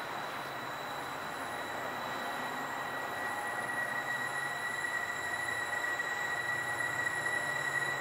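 Approaching diesel-hauled grain train, unseen, its rumble growing steadily louder. A high, steady squeal comes in about three seconds in and holds.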